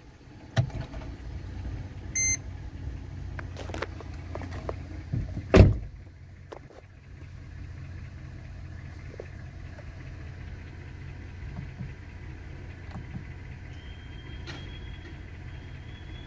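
Mercedes W164 engine idling, heard as a steady low hum inside the cabin. A short electronic chime sounds about two seconds in, and there are scattered clicks and one loud thump about five and a half seconds in.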